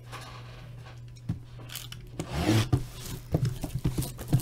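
Sealed cardboard card box being handled and turned over: rubbing and scraping of cardboard, with a few light knocks in the last two seconds, over a steady low hum.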